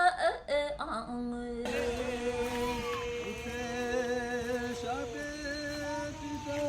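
Music with singing: long held notes that waver slightly and change pitch every second or two.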